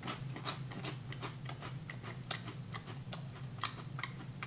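Close-up chewing of a crisp wafer cracker: a run of small dry crunches, several a second, with a sharper crack about two seconds in.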